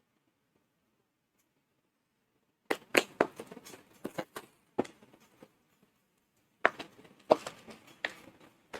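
Keyboard packaging being handled: two spells of crackling, clicking rustle, each about two to three seconds long, after a quiet start.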